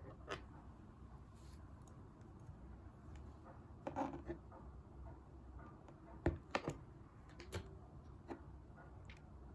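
Clear slime being handled by hand, giving a few scattered soft clicks and pops, loudest in a quick run about six and a half seconds in.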